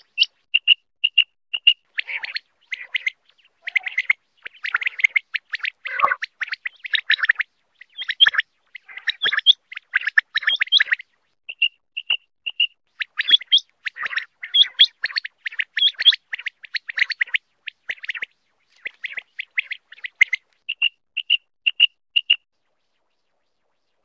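Quail calling: short, high, clipped notes repeated in quick series. At times several calls overlap in dense runs, then the call thins back to single evenly spaced notes before stopping near the end.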